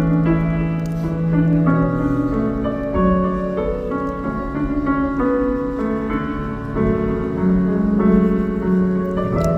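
Music led by piano, with long held notes changing every second or two.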